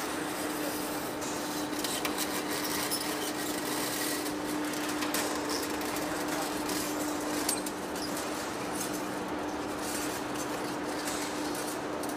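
Heavy-duty lathe turning a large rusty metal workpiece with the tool cutting its face: a steady machine noise with a constant hum, a rough hiss of cutting and scattered clicks.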